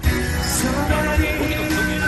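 Live music in a train carriage: a song with singing over a steady beat, played through loudspeakers.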